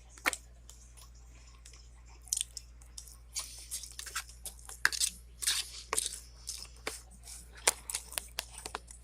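A person chewing and crunching food close to the microphone, with irregular crunches coming thick and fast from about two seconds in.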